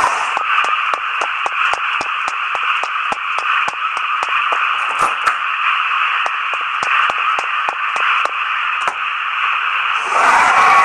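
Radio static: a steady, narrow hiss broken by regular sharp clicks, about four to five a second, turning louder and fuller near the end.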